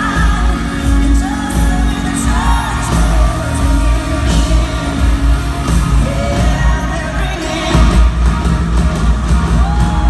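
Live band in an arena playing a country-pop song, heard from the audience, with amplified female lead and backing vocals over a heavy, pulsing drum and bass beat. A long held sung note begins near the end.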